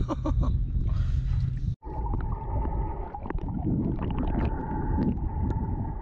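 Wind rumble at the surface, then, after a sudden cut about two seconds in, the sound heard underwater: a steady high whine with scattered sharp clicks and crackles over a low water rumble.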